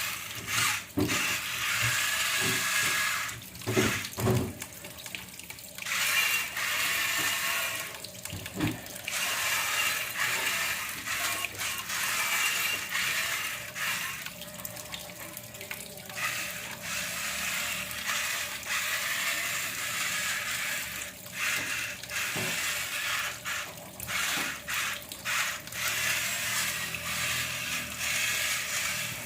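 Water splashing and running around a remote-control toy bulldozer as it moves through water, over a faint steady whine from its small electric motor. The water noise comes and goes in short surges with brief dips.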